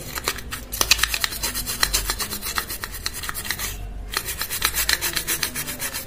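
Bristle brush scrubbing a chemical-wet circuit board in quick, repeated back-and-forth strokes, with a brief pause about four seconds in. The brush is worked lightly over the connector pins to lift carbon deposits.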